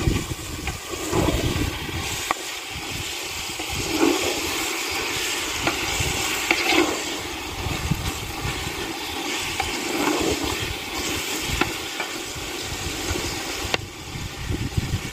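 Wind buffeting the microphone over a steady rush, with a wooden spoon stirring a simmering pot of zucchini and tomato stew and the occasional sharp crackle from the wood fire beneath it.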